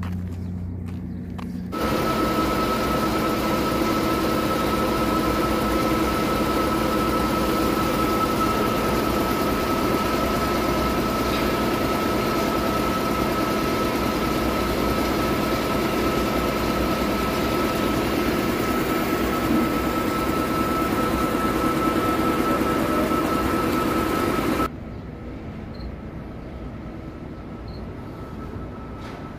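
Large workshop air compressor running: a loud, steady machine noise with a constant high whine over a hum. It starts abruptly about two seconds in and cuts off abruptly near the end.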